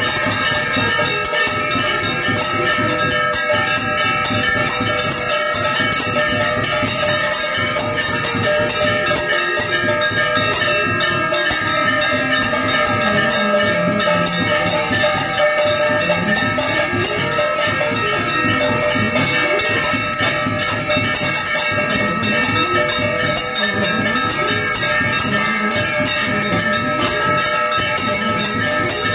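Temple bells ringing continuously for an aarti, the lamp-waving offering, a dense steady ringing of many overlapping tones. From about ten seconds in, a lower tone slides up and down beneath the bells.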